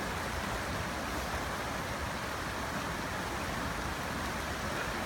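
Creek water rushing steadily over a small cascade of rocks, an even hiss without breaks.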